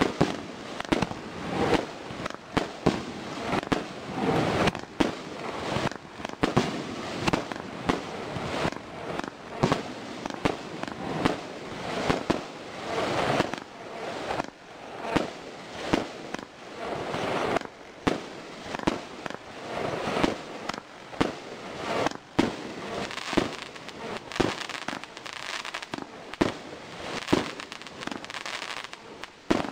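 Consumer fireworks cake firing shot after shot. There are roughly one or two sharp reports a second, each launch followed by a small burst crackling in the air.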